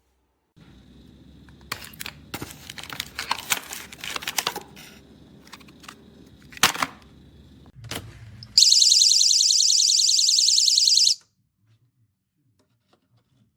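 Plastic clicks and handling knocks, then a GE Personal Security window/door alarm sounds a loud, high-pitched, rapidly pulsing siren for about two and a half seconds before cutting off sharply.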